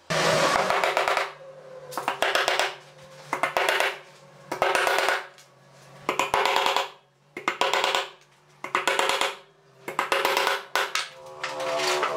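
Claw hammer driving nails into pine boards: about nine short runs of rapid blows, one run per nail, with brief pauses between.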